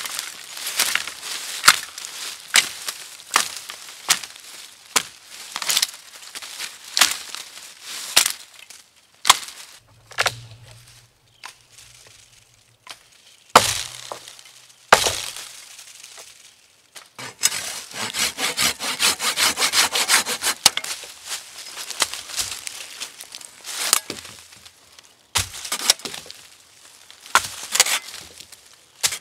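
Pack axe chopping a dead branch lying in dry leaves: sharp woody chops about once a second, then a few spaced strikes. Around two-thirds of the way through comes a four-second stretch of dense, continuous crackling, then the chops resume.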